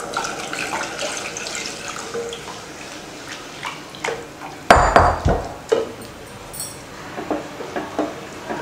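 Cornflour batter poured from a glass bowl into sugar syrup in a nonstick pan, then stirred with a slotted spatula: sloshing liquid with scraping and light clicks of the spatula against the pan. A loud knock about halfway through, followed by a few smaller knocks.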